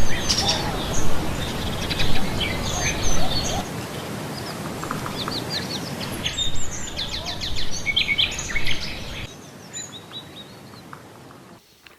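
Small birds chirping and twittering, many short quick calls, over a low rumble of background noise that fades out about nine seconds in.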